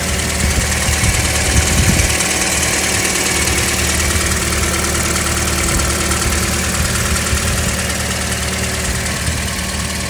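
Toyota Corolla four-cylinder engine running at a steady idle, heard close up under the open hood. The engine has low compression in all four cylinders, which the mechanic puts down to a failed head gasket.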